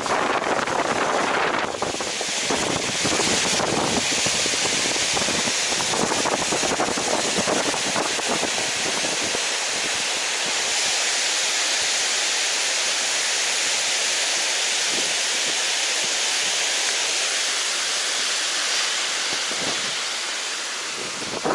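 Steady rush of water released from a dam, running high after a typhoon, with wind buffeting the microphone through roughly the first half.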